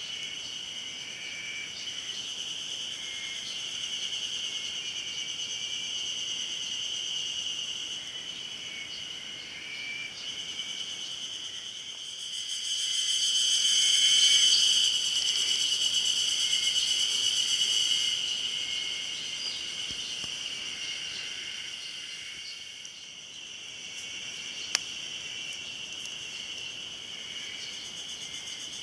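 A chorus of Ezo spring cicadas (Terpnosia nigricosta) singing in a steady, shrill, pulsing drone. One nearer cicada swells louder about twelve seconds in, holds for several seconds, then fades back into the chorus.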